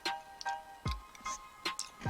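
Music with a sparse electronic beat: deep kick hits that drop in pitch, sharp clicks, and short repeated bell-like notes.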